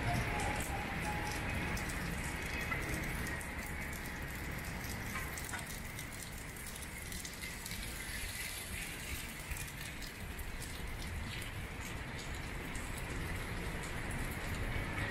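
Rain falling on wet city pavement: a steady hiss with scattered small drip ticks.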